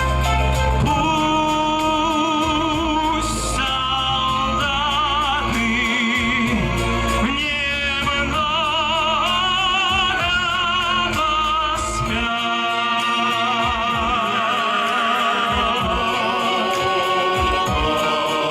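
Music from a live song performance: a high voice sings long wordless notes with wide vibrato over an instrumental backing.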